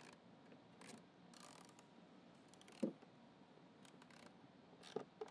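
Ratchet wrench clicking faintly in short runs while driving the 10 mm bolts that hold a vacuum motor, with light knocks of tool and parts; one louder knock about three seconds in.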